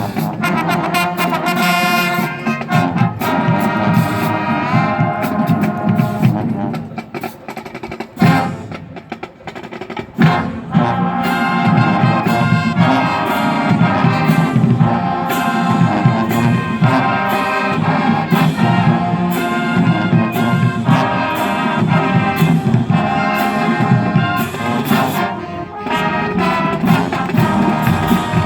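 Marching band playing, with brass carrying the tune over drums. It drops to a quieter passage about six seconds in and comes back in loud about ten seconds in.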